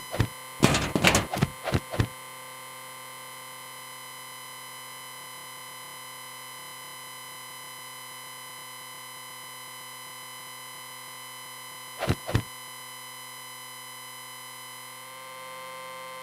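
Added electronic sound effects: a steady synthetic tone runs throughout. A quick run of loud thuds comes in the first two seconds, and a pair of thuds about twelve seconds in.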